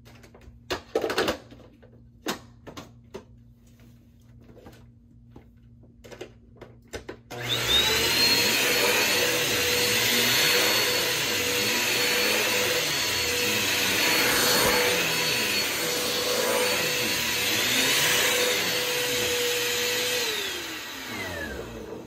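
A Bissell PowerForce Compact (23T7) upright vacuum cleaner comes on suddenly about seven seconds in, after a few light clicks and knocks. Its motor runs with a steady whine, rising and falling in pitch as it is pushed back and forth over carpet. Near the end it is switched off and winds down, the whine gliding lower.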